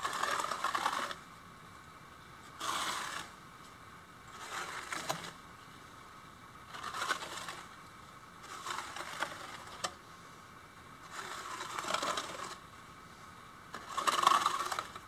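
Notched steel trowel scraping tile mortar across a flat surface, combing it into ridges: seven separate strokes about two seconds apart, the last the loudest.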